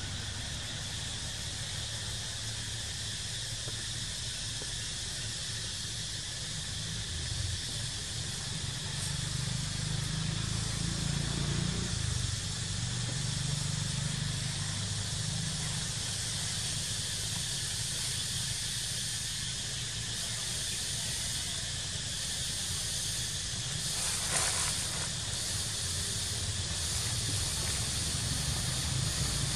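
Steady high hiss of outdoor background noise over a low rumble, with a brief louder noise about 24 seconds in.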